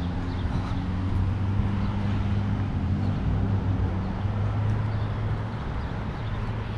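Street traffic: a motor vehicle's engine running with a steady low hum.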